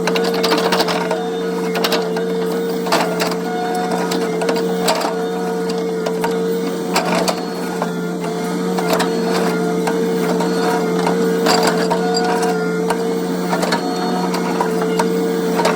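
Hitachi mini excavator running, a steady engine and hydraulic drone with irregular clicks and knocks throughout.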